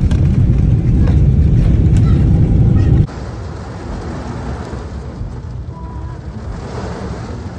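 Loud low rumble of an airliner cabin as the jet rolls down the runway with its wing spoilers raised, as in a landing rollout. About three seconds in it cuts off abruptly to the quieter, steady noise inside a car in the rain.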